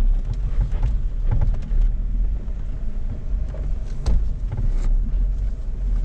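Jeep Rubicon's engine running low as it crawls slowly over rock, heard from inside the cabin as a steady low rumble. Scattered sharp knocks sound throughout, loudest about four seconds in.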